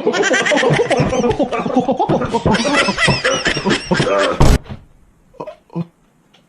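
A dense jumble of goofy meme sound effects with cartoonish, chattering voice-like sounds, cut off about four and a half seconds in by one loud, deep boom, followed by a few short scattered effect sounds.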